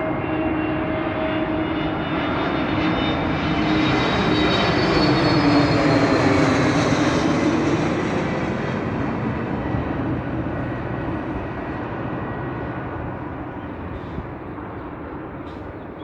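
Airbus A320neo jet engines as the airliner passes during its landing: the engine noise swells to its loudest about six or seven seconds in, with whining tones that drop in pitch as it goes by, then fades away steadily.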